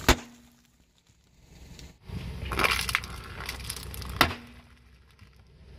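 Sealed foil snack packets crushed under a car tyre: one sharp pop right at the start and another a little past four seconds as the packets burst, with crackling crunching of the contents around two to three seconds in.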